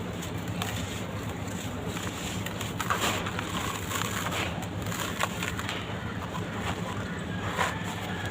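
Dry red dirt crumbling: soft, irregular crackles and crunches over a steady low hum.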